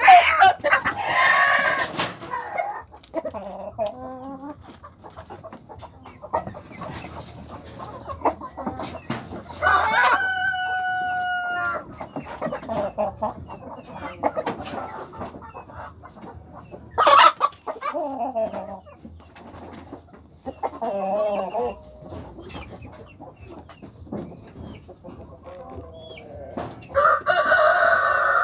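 Chickens clucking and squawking, with a rooster crowing twice: one long crow about ten seconds in and another near the end.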